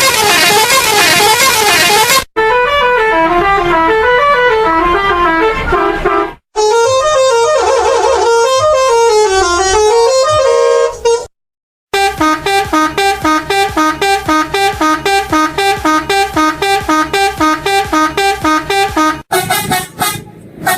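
Multi-tone 'telolet' air horn on a sand truck playing melodies, its pitch stepping up and down. The horn plays in several loud bursts cut off abruptly, and in the second half it sounds a long run of quick staccato notes, about six a second.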